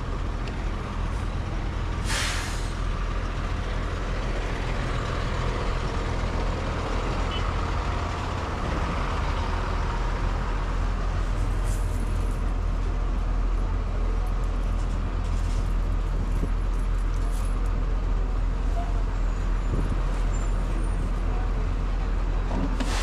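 City bus running close by, with a short hiss of its air brakes about two seconds in, over a steady low traffic rumble.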